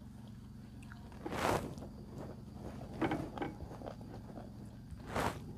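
People eating rice by hand at a table and chewing, with three short bursts of noise, the loudest about a second and a half in, over a steady low hum.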